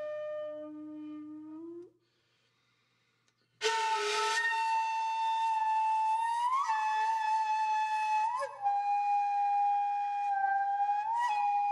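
Background music: a solo flute holding long, steady notes, sliding up into each new note. It breaks off for about a second and a half near the start and comes back in with a breathy attack.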